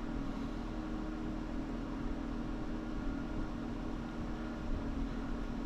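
Steady machine hum with a low held drone and an even hiss, at a constant level.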